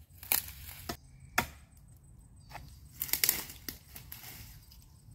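Sharp woody knocks, the loudest about a second and a half in, with crunching of bark and dry undergrowth, as a machete is struck into a tree trunk and a man starts to climb it.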